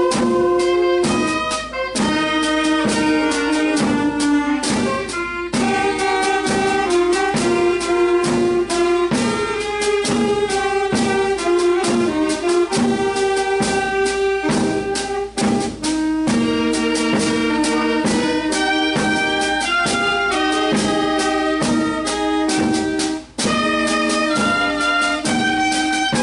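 A small wind band of clarinets and saxophone with drums playing a slow melody over a steady drum beat.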